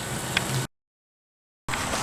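Intercooler coolant pump running with a low steady hum, cut off abruptly by about a second of dead silence, then water gushing out near the end as distilled water is flushed through the intercooler system.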